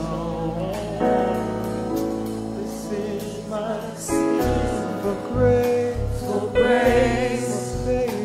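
Live gospel worship song: singers holding notes over a band with bass guitar, the bass notes coming in about four seconds in.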